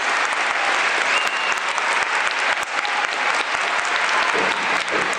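Large stadium crowd applauding steadily, many hands clapping at once without a break.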